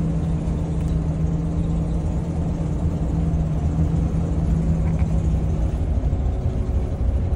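Class A motorhome driving at road speed, heard inside the cab: a steady low rumble of engine and road noise with a steady drone on top that fades out about six seconds in.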